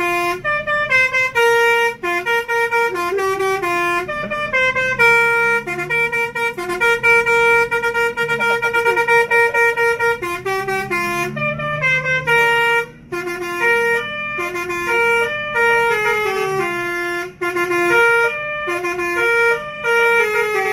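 Bus "telolet" musical air horn (Basuri type) playing a tune of quick stepped notes, almost without pause, with brief breaks about 13 and 17 seconds in.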